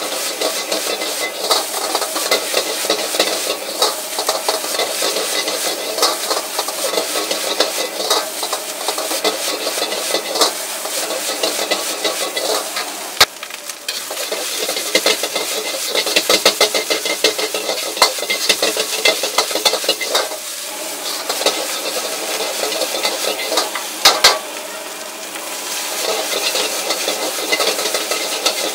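Egg fried rice with roast duck being stir-fried in a wok: a metal ladle scrapes and clatters against the wok in quick, continuous strokes as the rice sizzles. There is a short lull about halfway through and a sharp clank a few seconds before the end.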